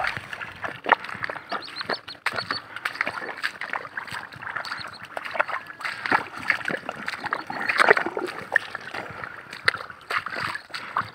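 Footsteps squelching and splashing through wet, waterlogged mud: an irregular run of short wet slaps, one after another with each stride.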